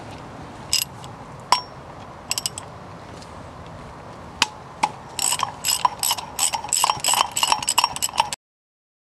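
Hand socket ratchet clicking as it works a bolt on a wire-wheel hub and brake disc. A few scattered clicks and knocks come first, then about five seconds in there are quick repeated bursts of ratcheting that stop abruptly near the end.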